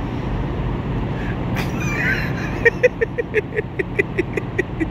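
A person laughing in a quick run of short 'ha' bursts that slowly fall in pitch, starting a little past halfway. Under it runs a steady low hum of idling vehicle engines.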